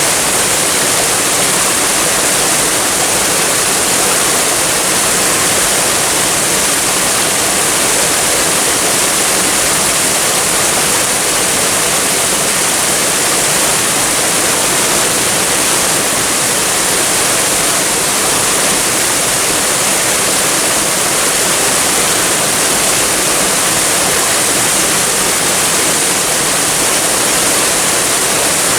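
Waterfall and flowing water rushing in a steady, unbroken hiss, loud and bright in the highs.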